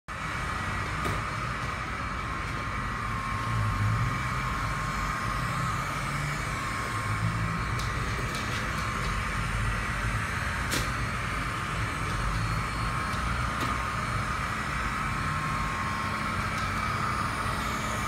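Kalley robot vacuum running on a laminate floor, a steady whirring hum with an even whine, broken by a few sharp clicks.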